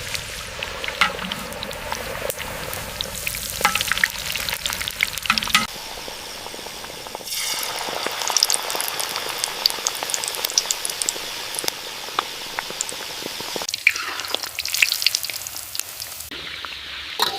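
Food frying in hot oil, sizzling with many small crackles and pops; the sizzle changes in level and character abruptly a few times.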